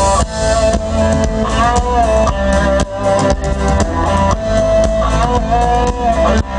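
Live country-rock band playing an instrumental break: an electric guitar lead with long held notes that bend up and down, over drum kit and bass.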